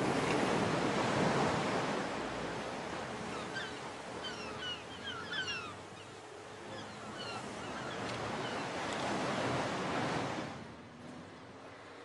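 Ocean surf and wind: a steady rush of noise that swells and ebbs, with a few short high chirps a few seconds in. It cuts off abruptly near the end, leaving a much quieter background.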